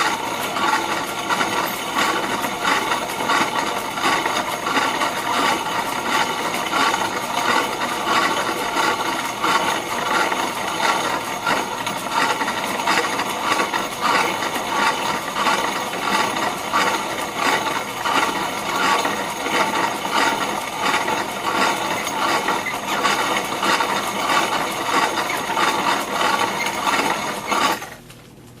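Corona-style grain mill crushing malted barley, a steady grinding rattle of kernels being cracked between the plates; it stops abruptly about a second before the end.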